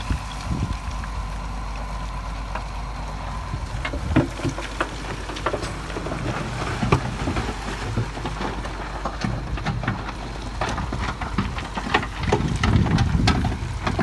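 Heavy construction machinery's diesel engine running steadily, with irregular clattering knocks that grow busier and louder in the second half.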